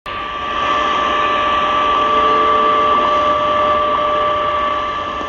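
Tecsun PL-990x shortwave radio tuned to 15 MHz, receiving the WWV and WWVH time-signal stations at once over static hiss. Their steady audio tones blend into a double tone, with a faint tick about once a second, because the two stations' signals are mixing on the same frequency.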